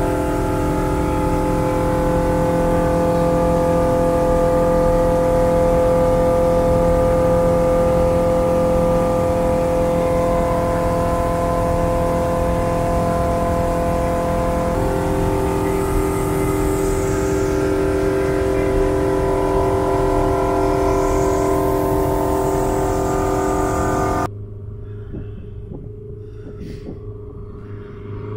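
Turbocharged Edge Performance Rotax 912 STi flat-four and propeller droning steadily at cruise power, about 5100 rpm, heard loud from inside the cockpit. About 24 seconds in it cuts to the same engine heard much quieter from the ground as the plane flies toward the strip.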